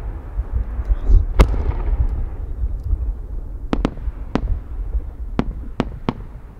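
Aerial firework shells from Nomura Fireworks bursting. There is a loud bang about a second and a half in, then a quick string of six sharp cracks between about 4 and 6 seconds. Under them runs a low rumble of echoes that slowly dies away.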